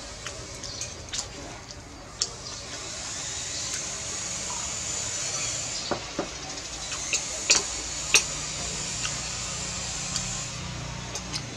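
Metal chopsticks and a spoon clicking and clinking against a ceramic bowl while eating rice noodles: a scattering of sharp clicks, the two loudest about two-thirds of the way through, over a steady high hiss.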